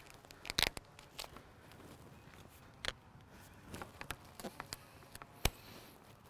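Scattered light taps and clicks from a beach fishing rod being handled at a taped joint, with one sharp tap about five and a half seconds in, the loudest.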